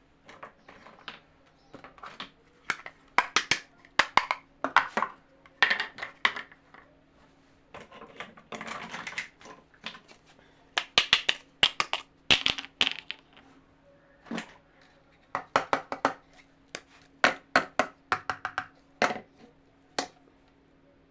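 Small plastic toy kitchen pieces clicking and knocking against each other and against their packaging as they are handled, in quick clusters of taps. About eight seconds in, a second or so of rustling packaging.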